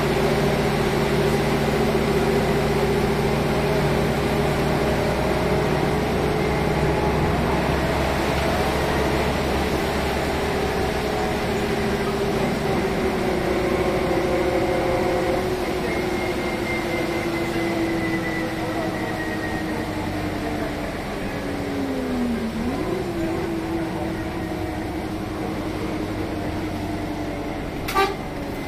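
Renault R312 city bus running, heard from inside the cabin: a steady engine drone whose note slowly falls, then dips and picks up again about three quarters of the way through. A single sharp click near the end.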